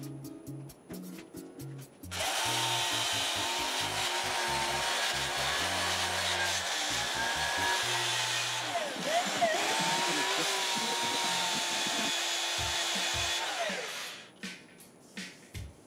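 Handheld drill spinning a sanding disc against the outside of a wooden bowl turning on the lathe: a steady motor whine with sanding hiss, starting about two seconds in and stopping near the end, the whine dipping briefly in pitch under pressure about nine seconds in. Background music with a bass line plays under it.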